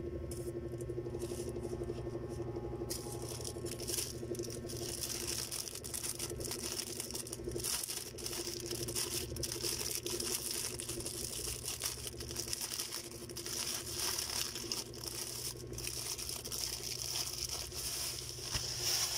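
Clear plastic bags crinkling and rustling as packaged face masks are handled, starting about three seconds in, over a steady low hum.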